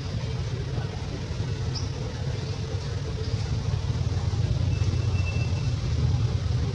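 Steady low rumble of an engine running nearby, with a few short high chirps and one brief thin whistle about five seconds in.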